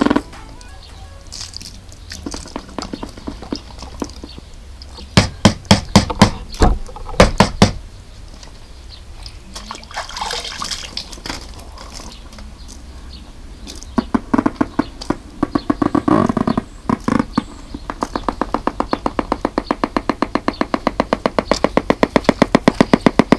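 Music from a Bluetooth speaker cuts off as the speaker goes under water. There are scattered loud knocks and clatters, then in the last five seconds or so a fast, even pulsing that grows louder toward the end.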